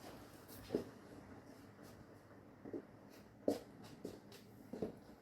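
About half a dozen faint, irregular clicks and taps, the kind made by working a computer mouse and keyboard.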